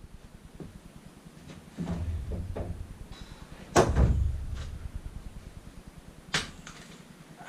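Knocks and thumps of building work: a few light knocks, then a heavy thud about four seconds in, the loudest sound, and a single sharp knock near the end.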